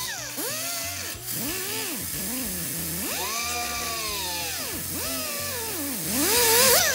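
Small right-angle die grinder with a sanding disc sanding a TIG weld flush on sheet metal. Its whine rises and falls in pitch over and over, and a louder gritty rasp comes near the end.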